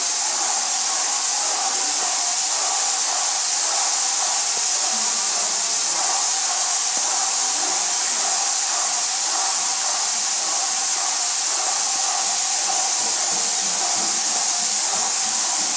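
Airless paint sprayer spraying emulsion, a steady high hiss from the spray tip that runs without a break.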